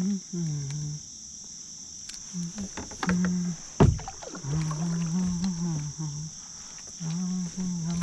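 A man's low voice muttering in short indistinct phrases over a steady high buzz of insects, with one sharp knock about four seconds in.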